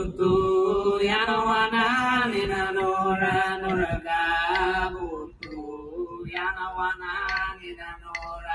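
A voice chanting in long, steady held notes, loud for about the first five seconds, then a quieter second phrase.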